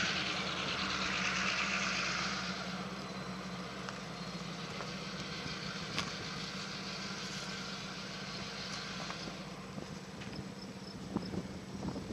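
A vehicle engine hums steadily. A rushing hiss over it fades out about two and a half seconds in.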